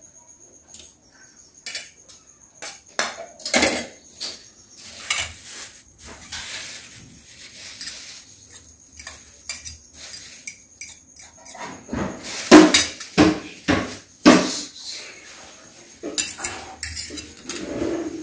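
Steel spoon and fork clinking and scraping against stainless steel plates and a steel bowl while noodles are served, in irregular sharp clicks and knocks. The loudest run of clinks comes about twelve seconds in.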